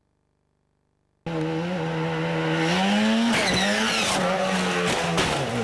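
Rally car engine running hard at high revs, cutting in suddenly about a second in; its pitch rises a little and holds, with a few sharp cracks near the end.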